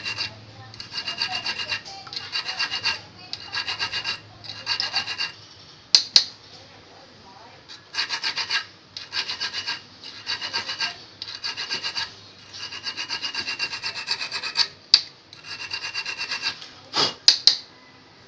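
Small metal file rasping on the point and barb of a steel fishhook in short bursts of quick strokes, about one burst a second, with a high ringing edge. A few sharp clicks come in between, twice in the middle and a couple near the end.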